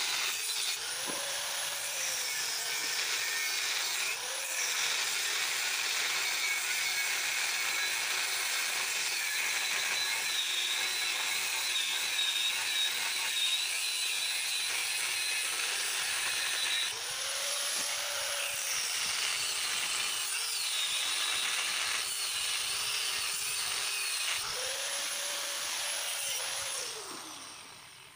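An electric power tool runs steadily against the motorcycle's steel frame, its pitch swelling and sinking a few times as it loads up. It winds down near the end.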